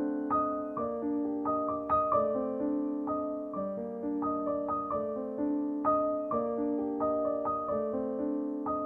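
Background piano music: a gentle melody of struck notes, about two a second, each ringing and fading over held lower notes.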